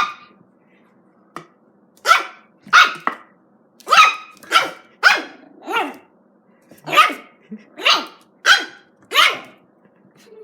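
Pet dog barking repeatedly at a plastic bottle, about ten sharp barks in quick irregular groups. The dog is barking warily at an unfamiliar object, which the owner reads as fear.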